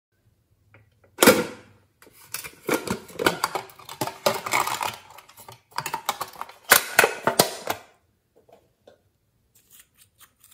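A fish-shaped metal tin box being handled and opened: a sharp clack about a second in, then runs of rapid clattering and rattling. Sparse light clicks near the end as a glass nail polish bottle's cap is twisted.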